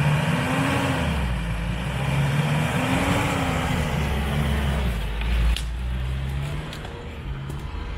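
Mitsubishi L200 pickup's 2.5 DI-D turbodiesel revving under load as the truck climbs a steep dirt slope, its tyres spinning in the soil. The engine note rises and falls twice, and the sound drops off a little after about five and a half seconds.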